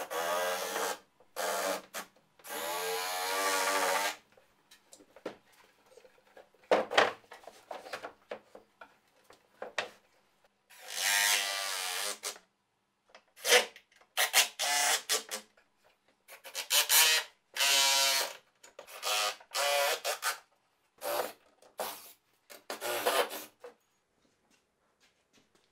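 Power drill running in a series of short bursts, about a dozen, each a steady whine lasting from a fraction of a second to about a second and a half, as it drives screws to fasten a wooden cleat and shelf unit to the wall.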